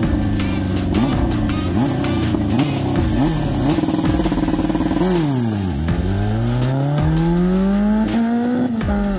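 Turbocharged Honda CB750 inline-four drag bike engine at the start line, blipping and held against the launch (2-step) limiter. About five seconds in it launches: the revs dip, then climb steadily as it pulls hard, and the pitch drops with a gear change near the end.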